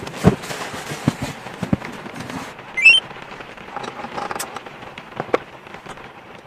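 Rustling and soft thumps of pillows and a quilted blanket being handled on a bed. About three seconds in comes a short rising chirp, then light clicks and clinks of metal camping lanterns being touched and adjusted.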